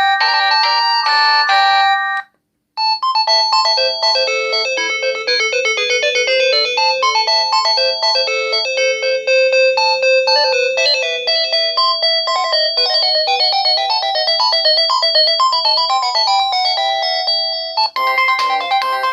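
LG C1200 mobile phone's built-in ringtones playing one after another, synthesized melodies with several notes at once. One tune ends about two seconds in, and after a short silence a new one plays until near the end, where the next tune begins.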